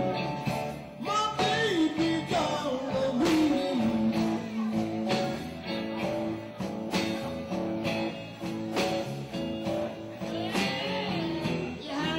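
Live electric blues band playing: electric guitars over drums keeping a steady beat of about one hit a second, with a lead line of bending notes.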